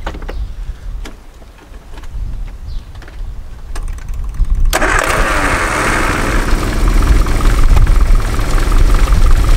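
Classic Mini's A-series four-cylinder engine being started. It catches suddenly about halfway through and then runs steadily and loudly.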